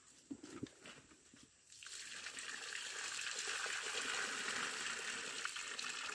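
Water and live fish poured out of a white plastic bucket into a muddy pond: a steady gush of splashing water that starts about two seconds in and grows louder. A few light knocks come before it.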